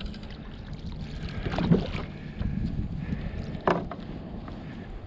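Water lapping against a kayak's hull with wind on the microphone, and two sharp knocks, one under two seconds in and one nearly four seconds in.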